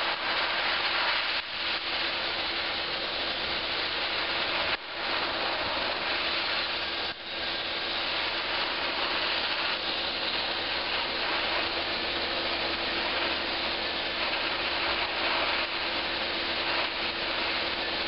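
Abrasive blasting: a hand-held sandblaster nozzle blasting a metal demountable clincher rim, a steady rushing hiss. The hiss drops briefly about five and about seven seconds in.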